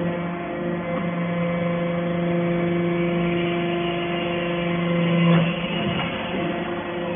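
Hydraulic scrap copper wire baler's pump unit running with a steady hum, its tone shifting about five seconds in.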